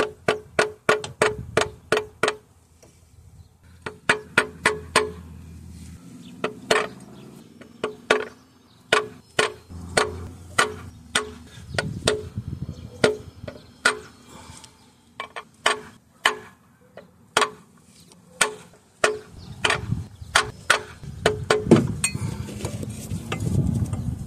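A white-headed mallet tapping a makeshift driver to seat a new front crankshaft seal, in quick runs of taps, about four a second, with short pauses between runs. Each tap has a brief metallic ring.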